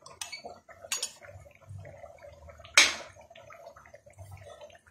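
A spoon stirring cornflour-and-water slurry in a glass bowl, with scattered light clicks of the spoon against the glass. The sharpest knock comes about three seconds in.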